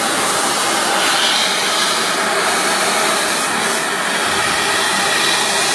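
Sheet-metal CNC punching and laser cutting machine running with a loud, steady rushing hiss and no punch strokes, typical of laser cutting with assist gas and fume extraction.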